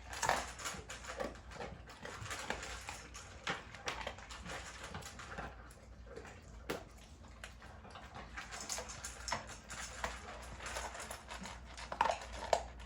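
Dogs eating from bowls: irregular crunching and clicking of dry food, with a few sharper clicks near the end.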